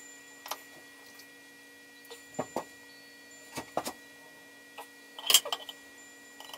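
A can of tuna being opened by hand: a few scattered metallic clicks and knocks over a faint steady hum.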